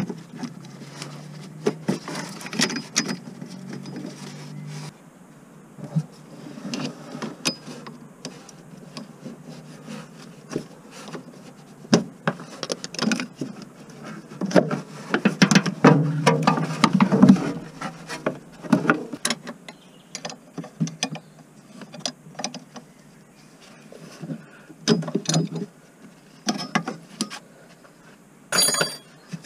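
Hand work on a van's gear selector cable linkage: irregular metal clicks, knocks and scraping, busiest in the middle.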